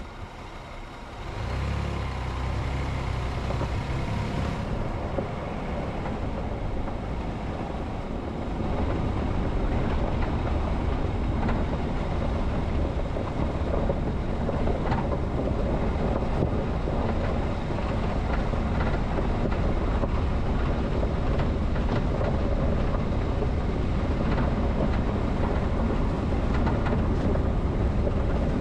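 Vehicle driving along a forest road: steady engine and road rumble that sets in about a second in and grows louder around eight seconds in, with scattered short knocks.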